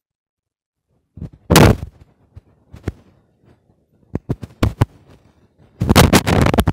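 Phone microphone being knocked and rubbed as the phone is handled: a loud bump about a second and a half in, a few sharp clicks, then a long stretch of loud rubbing noise near the end.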